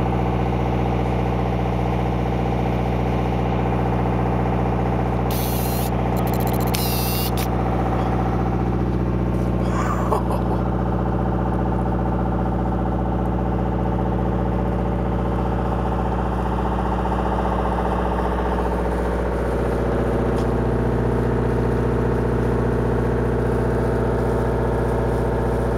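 A boat's engine running steadily at a constant, even hum, its note dipping slightly about three quarters of the way through.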